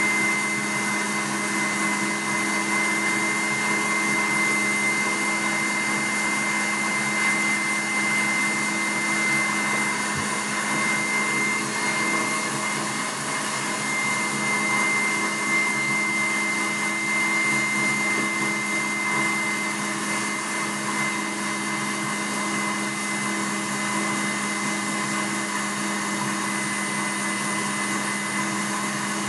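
Stand mixer running steadily with its wire whisk, beating Italian meringue as it cools toward 30 °C to firm up: a constant motor hum with a high whine over it.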